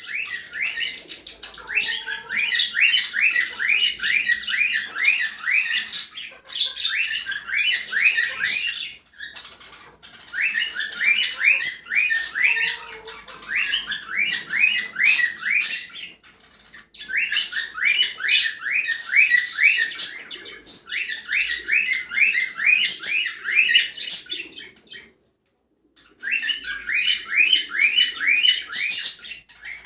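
Cockatiels chirping and chattering in rapid runs of short, high calls, several a second, in bouts of a few seconds with brief pauses. The sound cuts out completely for about a second near the end.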